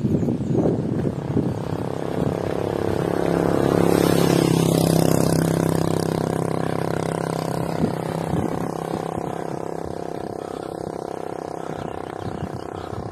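Small motorcycle engine running as it approaches and passes, swelling to its loudest about four seconds in and then slowly fading. Low rumbling knocks on the microphone near the start.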